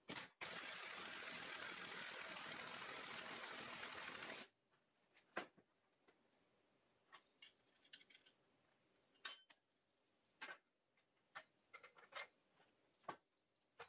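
Near silence: a faint steady hiss that cuts off abruptly, then scattered light clicks and taps of small parts and tools being handled on a work table.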